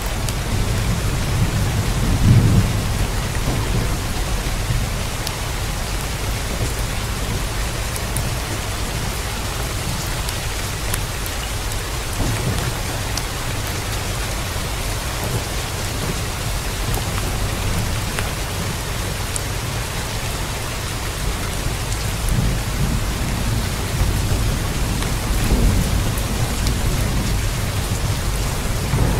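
Steady heavy rain, with a low rumble of thunder that swells about two seconds in and again near the end.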